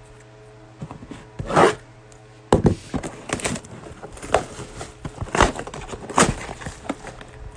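Cardboard trading-card boxes being handled by hand: a series of knocks and scrapes as boxes are shifted and set down, with their plastic wrap rustling.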